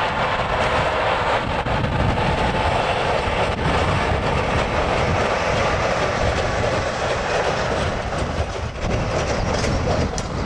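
Steel wheels of a passing rail maintenance move, a truck hauling a flatcar loaded with a crane, rolling along the track with a steady clickety-clack.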